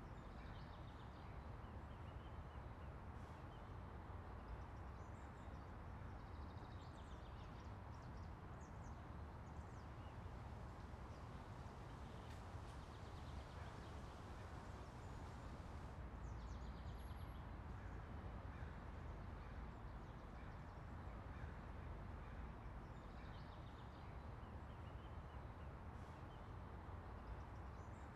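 Steady, quiet outdoor background rumble with faint, scattered bird chirps coming and going.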